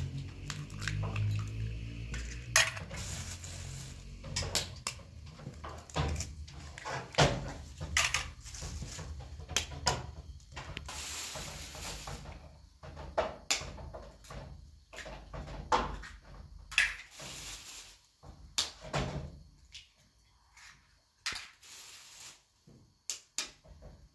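Eggs being cracked with a metal spoon: irregular sharp taps of the spoon on the shells and clinks against a glass bowl, with brief rustling in between. The taps grow sparser and quieter near the end.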